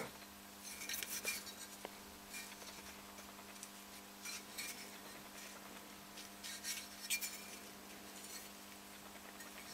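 Faint handling sounds from a metal cylinder liner turned in the hand: a few light clicks and rubs, scattered about a second in, near the middle and around seven seconds in, over a steady low electrical hum.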